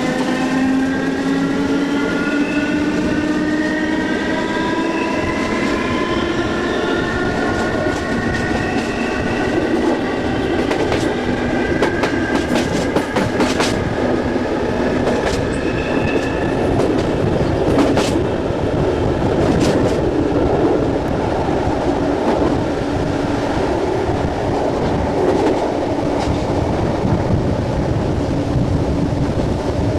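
SNCB AM80 electric multiple unit accelerating: its traction motors whine, a stack of tones rising in pitch for about the first half, then settle into steady running with wheel and rail noise and a few clicks over rail joints.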